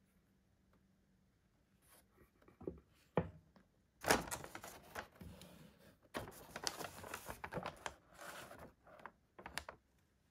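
Handling noise. A couple of knocks as the plastic remote is set down, then paper rustling and crinkling for several seconds as the folded instruction leaflet is moved.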